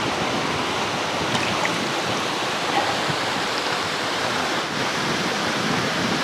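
Steady rushing of river water flowing over stones.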